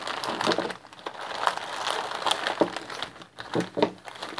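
Plastic packaging bags, a clear zip bag and foil anti-static bags, crinkling and rustling in irregular crackles as they are handled and opened, with two sharper crackles a little before the end.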